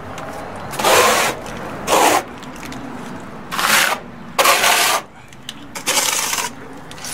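Hand trowel scraping wet cement stucco with a fine aggregate across cement board, in a series of about five strokes of about half a second each.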